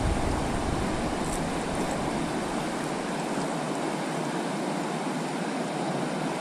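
Creek rapid rushing and splashing in a steady, even whitewater roar around a kayak running down it.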